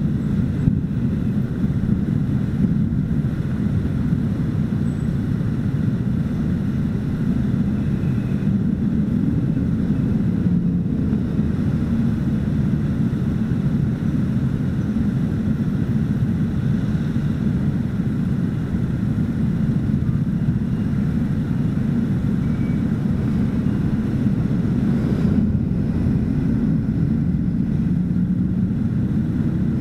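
Idling scooter engines in a pack of stopped scooters, a steady low rumble with city traffic behind it.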